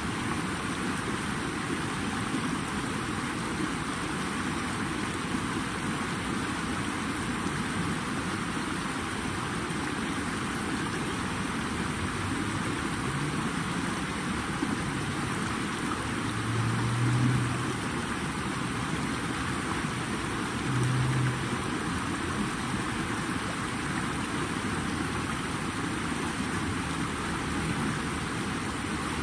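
Flowing water making a steady, even wash of noise. Two brief low rumbles rise out of it a little past the middle, about four seconds apart.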